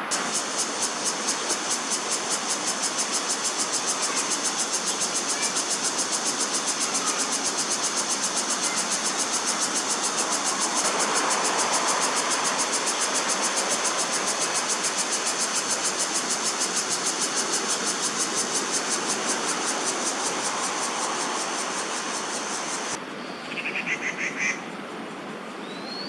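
Chorus of cicadas buzzing loud and high with a steady rapid pulse, over a faint low background rumble that swells around the middle. The sound cuts off near the end and a short bird call follows.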